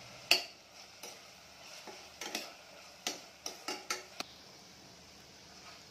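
Metal spoon stirring and clinking against the inside of a steel pressure cooker as onions, tomatoes and ginger-garlic paste are sautéed in oil, over a faint sizzle. The clinks come irregularly: a sharp one about a third of a second in, a few scattered, then a quick cluster around three to four seconds before they stop.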